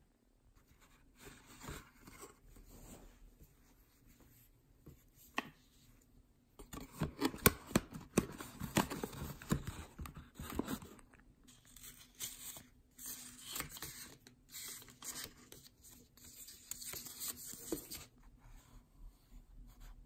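A small cardboard box being opened by hand and its contents pulled out, then a folded paper leaflet unfolded: rustling, scraping and tearing-like paper and cardboard noises. The noises are busiest and loudest from about a third of the way in to about halfway, then turn to lighter crinkling.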